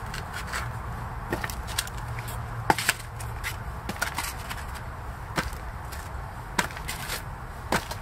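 Potatoes dropped one at a time into a plastic tub, each landing with a short knock at irregular intervals.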